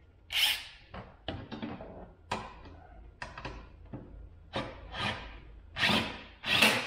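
Hand-handling noise at the plastic A-arm guard and its bolts: short scrapes and rubs with a few clicks and knocks, the loudest scrapes near the end.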